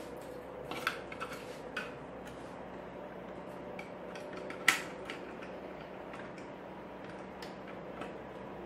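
Small metal clinks and clicks from the CPU cooler's backplate and mounting screws being handled and fitted: a few quick taps in the first two seconds and one sharper click about four and a half seconds in, over a faint steady hum.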